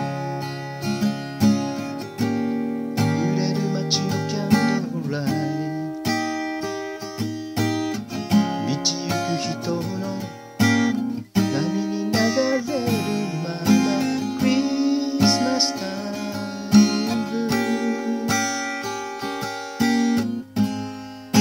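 Cutaway acoustic guitar being strummed, its chords ringing on continuously as song accompaniment.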